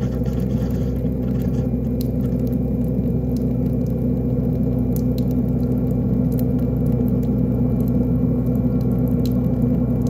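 Kitchen garbage disposal motor running with a steady hum while it churns a foaming disposal-cleaner scrubbing packet, with a few light ticks.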